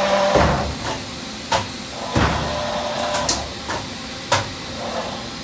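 A few sharp knocks and clicks and two short rumbling sweeps over a steady background hum.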